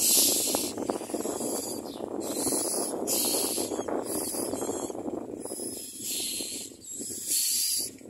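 Common myna nestlings begging for food: a run of harsh, hissing calls, about one a second, from the hungry chicks gaping in the nest.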